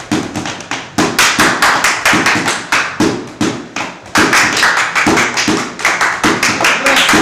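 Wooden drumsticks striking the padded seat of a chair in a quick, uneven rhythmic pattern, a practice stand-in for a drum.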